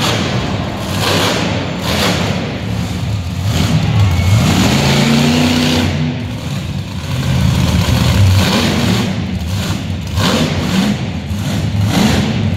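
Monster truck engine revving hard, its pitch rising and falling several times as the throttle is blipped and held.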